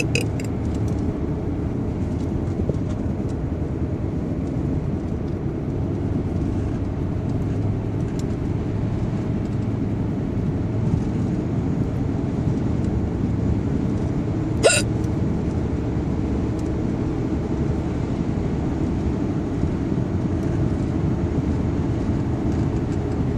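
A person hiccuping: one sharp, loud hiccup about two-thirds of the way through, over a steady low rumble.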